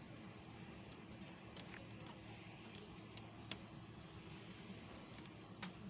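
Faint steady hum over low background noise, with a few small, sharp clicks, three of them spaced out over the stretch.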